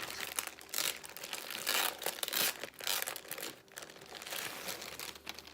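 Packaging crinkling and tearing as it is wrestled open, in irregular rustles that thin out near the end.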